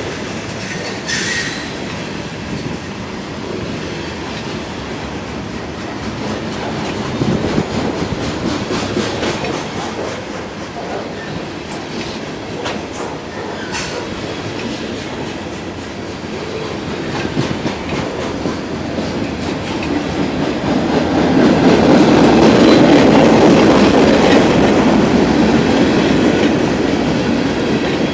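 Freight cars of a long CSX manifest train rolling past: steady rumble of wheels on rail with a couple of sharp metallic clanks. The rumble grows louder in the last third.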